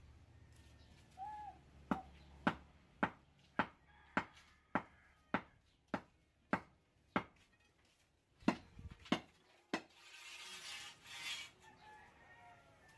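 A run of sharp, evenly paced strikes, about two a second, some with a short ring after them. They pause briefly, come three more times, and then give way to a short rushing hiss near the end.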